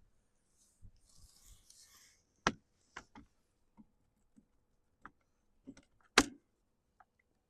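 Scattered clicks and knocks of hand-work on a chainsaw's bar, chain and bar cover being refitted, the loudest knock about six seconds in, with some rustling in the first two seconds.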